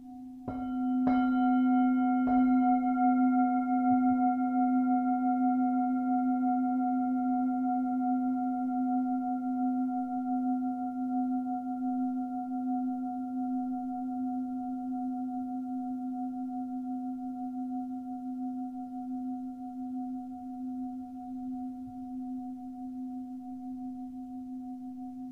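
Singing bowl struck three times in quick succession, about half a second, one second and two seconds in, then left to ring with a long, slowly fading hum.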